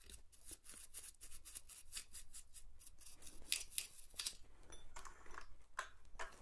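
Lint brush scrubbing dust and old oil off the metal rods and linkages inside a Singer 401A sewing machine's needle-bar section: faint, quick scratchy strokes, several a second, a few louder ones in the second half.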